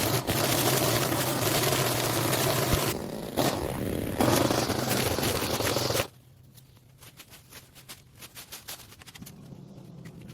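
Small gasoline engine of a yard tool running steadily under load, which cuts off abruptly about six seconds in. Quiet scattered scraping and clicks follow.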